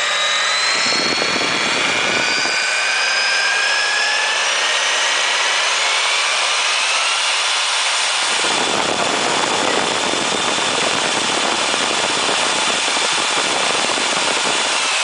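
Milwaukee 4208-1 magnetic base drill press motor whining as its variable speed control is turned up: the pitch rises over the first several seconds, then holds steady at high speed.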